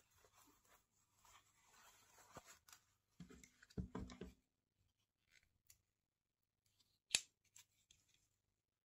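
Quiet handling sounds of a knit trainer rubbed and turned in the hands, then of a utility knife being handled. There are louder knocks and rustles just after three seconds, and one sharp click about seven seconds in.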